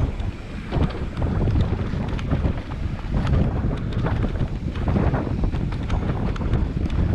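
Wind buffeting the microphone in a steady low rumble, with scattered short knocks and rattles through it, typical of a camera on a mountain bike riding downhill.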